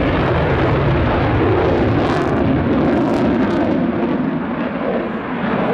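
Belgian Air Component F-16 Fighting Falcon's Pratt & Whitney F100 turbofan heard from the ground during a display pull-up: loud, steady jet noise.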